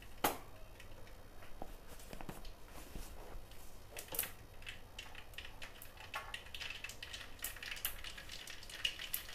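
Mustard seeds crackling and popping in hot ghee at the start of a tadka (tempering). Faint, irregular pops over a light sizzle, coming more often in the second half.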